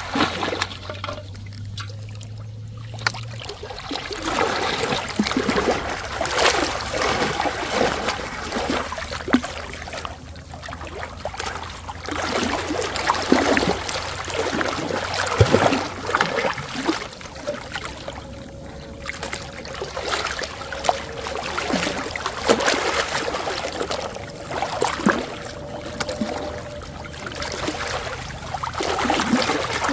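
Water trickling and splashing irregularly, with many short splashes over a continuous watery noise.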